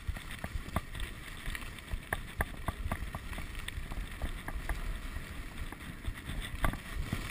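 Skiing or snowboarding edges scraping over hard-packed groomed snow at speed: a steady rushing hiss with scattered sharp clicks, and wind on the microphone.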